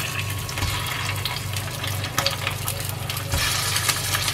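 Hot oil sizzling in a stainless steel frying pan as stuffed green chilies fry, with scattered pops and crackles over a steady hiss. A steady low hum runs underneath.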